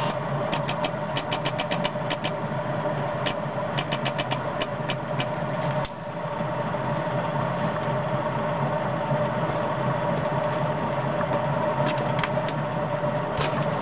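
Steady electrical buzz from a relay pulsing an ignition coil that is oscillating instead of giving clean single pulses. Runs of sharp snapping clicks come in bursts, near the start, around four to five seconds in and near the end, from the spark plug firing.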